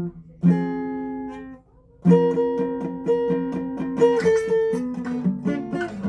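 Guitar playing: a chord rings out and fades to a brief pause, then a run of quickly picked notes and chords follows about two seconds in.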